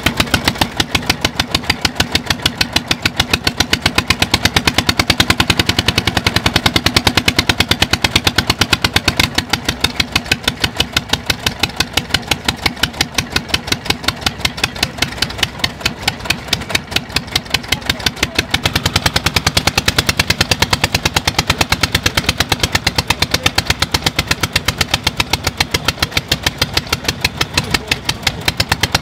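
Vintage single-cylinder stationary engines running, their exhaust giving a fast, even beat. About two-thirds of the way through, the beat takes on a deeper, fuller tone.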